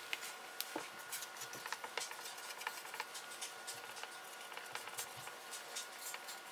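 Felt-tip marker writing on paper on a wooden table: a quick, irregular patter of small scratches and taps, over a faint steady hum.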